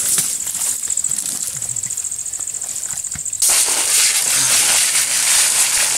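Outdoor field ambience: a steady, high, fast-pulsing insect chirr. About three and a half seconds in it cuts abruptly to a louder, even high hiss.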